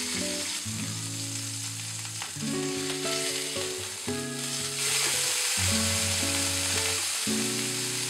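A fish fillet sizzling in hot oil in a non-stick frying pan. About halfway through it is turned over with a spatula and the sizzle grows louder. Background music plays underneath.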